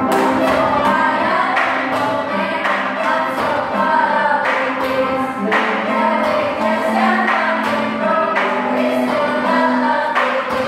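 A group of children singing together to upright piano accompaniment, with a steady percussive beat through the song.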